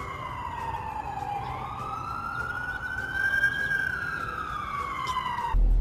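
Emergency-vehicle siren wailing, its pitch sliding slowly down, back up and down again, then cutting off suddenly near the end.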